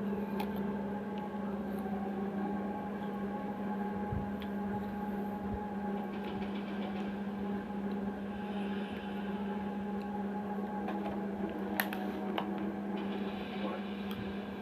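Steady low electrical hum over room noise, with a few faint clicks and one sharper click about twelve seconds in.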